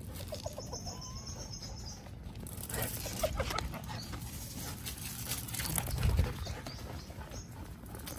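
Dogs running and play-fighting: paws pattering and scuffling on grass and brick paving, with a low thump about six seconds in.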